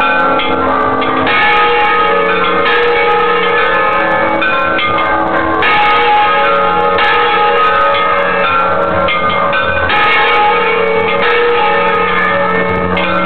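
Church tower bells ringing a festive repique: several bells struck in quick, overlapping succession, loud and close from inside the belfry.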